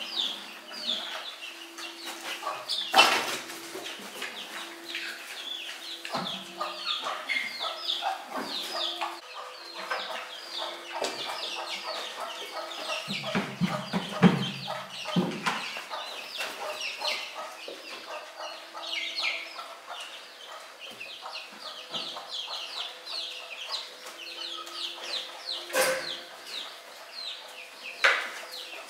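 Chickens clucking over a steady stream of short high chirps, with a sharp knock about three seconds in and two more near the end.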